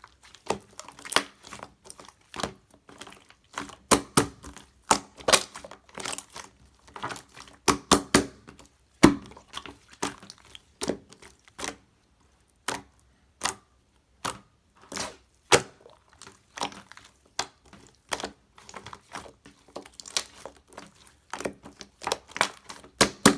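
Soft ice-cream-style slime being squished and pressed by hand, giving irregular sharp clicks and crackles with short gaps between them.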